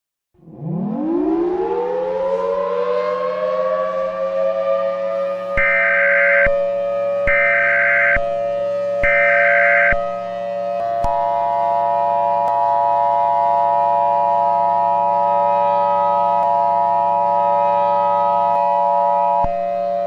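Tornado warning siren winding up from silence into a steady tone, with an Emergency Alert System header over it: three short bursts of data tones about a second each, then the two-tone EAS attention signal from about 11 s for roughly eight seconds, announcing the tornado warning.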